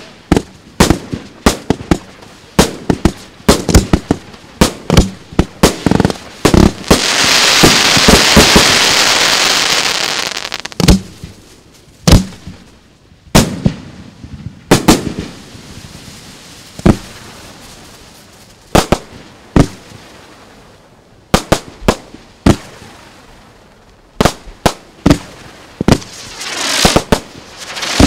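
Fireworks display: aerial shells bursting in a string of sharp bangs, at times several a second and at times about one a second. About seven seconds in, a loud continuous rush of noise lasts some three seconds, and near the end another rushing build comes in among close bangs.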